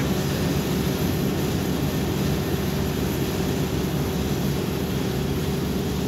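Kubota combine harvester running steadily as it moves through standing rice: a constant engine drone with a few steady low tones under even machinery noise.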